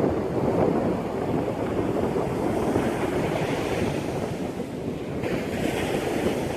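Sea waves washing in, a steady rush of surf with wind buffeting the microphone. A brighter hiss of water swells up about five seconds in.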